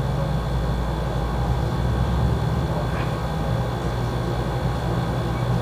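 A steady low hum, with a faint high-pitched tone held above it.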